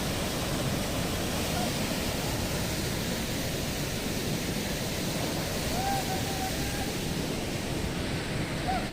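Waterfall's falling water making a steady, even rush, with faint brief voices of people in the crowd about six seconds in and near the end.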